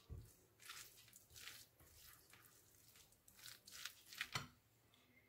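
A spoon stirring a mayonnaise-dressed chopped salad in a glass bowl: faint wet squishes and scrapes, several short strokes with the loudest near the end.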